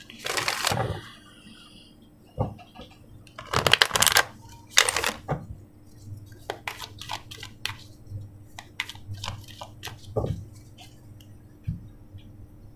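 Deck of oracle cards being shuffled: quick rasping riffles near the start and again about four to five seconds in, then a run of light clicks as the deck is squared and handled, with a single knock about ten seconds in.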